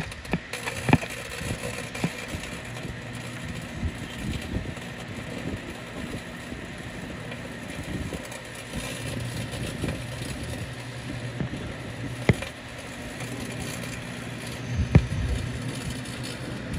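Microwave oven running with a steady low hum, metal forks inside arcing and giving a few sharp pops, about a second in, near the two-thirds point and again a little later.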